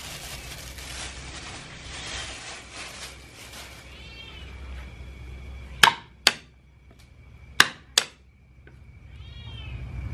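Plastic gloves rustling as hands toss shredded chicken and banana flowers for the first few seconds, then four sharp knocks on a wooden chopping block as garlic is prepared. A cat meows twice, about four seconds in and near the end.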